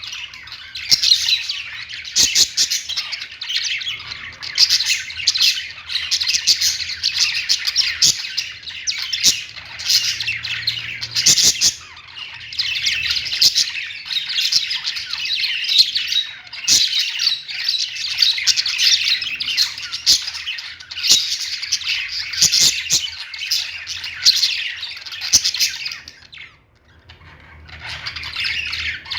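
Bird chirping and chattering almost without pause, breaking off briefly near the end.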